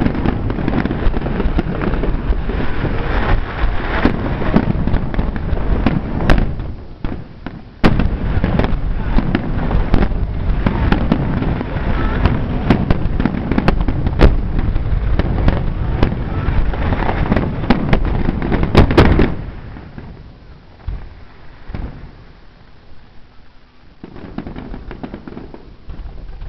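Fireworks display: aerial shells bursting in a dense barrage of booms and crackling, which drops off abruptly about three-quarters of the way through, leaving a few scattered, fainter pops.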